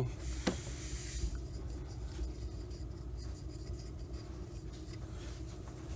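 Faint rubbing and small clicks of a rubber push-lock hose being oiled and worked onto a plastic fitting, with one sharper click about half a second in, over a steady low hum.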